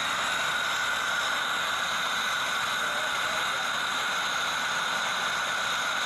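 Steady hiss of an old cast-iron hot-water heater ring burner burning oxyhydrogen (HHO) gas.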